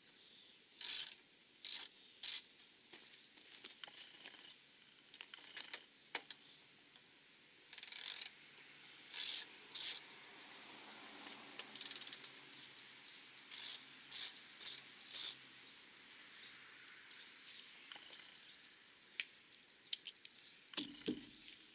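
Ratcheting socket wrench clicking in short bursts as the windshield bolts are backed out, with a quicker run of fine, even clicks near the end.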